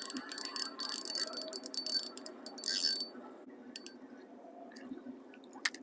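Fishing reel clicking rapidly for about three seconds, with a thin high ringing note through the clicks, then a few scattered ticks as a crappie is played.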